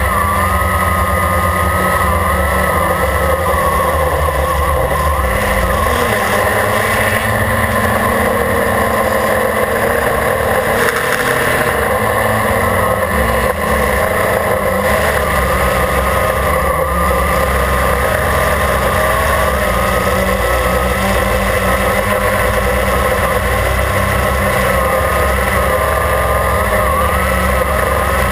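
Quadcopter's electric motors and propellers whining steadily in flight, heard from the camera mounted on the craft. The pitch wavers slightly as the throttle shifts, over a low buffeting of propeller wash and wind on the microphone.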